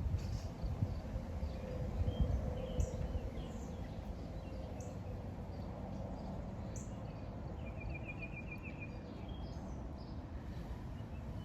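Small char-cloth-and-tinder fire crackling faintly, with scattered sharp ticks, over a steady low outdoor rumble. A short, rapid high trill comes about eight seconds in.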